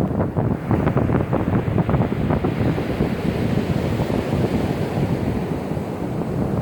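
Rough surf breaking and washing on a sandy beach under strong wind, with wind buffeting the microphone in a low rumble.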